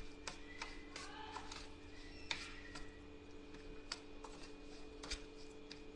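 A metal spoon stirring semolina and curd in a steel bowl, with irregular light clicks and scrapes of the spoon against the bowl.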